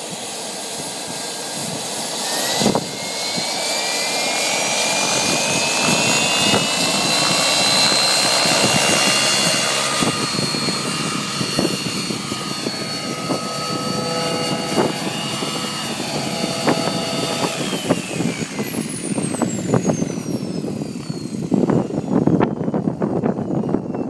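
Wren MW44 kerosene-start gas turbine in an RC helicopter: a high whistling whine with a rush of exhaust and rotor noise. It rises in pitch over the first several seconds as the turbine spools up, holds steady through the hover, then falls in pitch from about three-quarters of the way through as it spools down.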